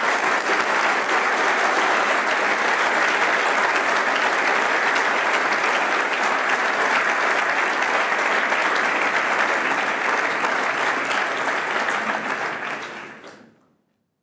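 Large audience applauding steadily, then fading out near the end.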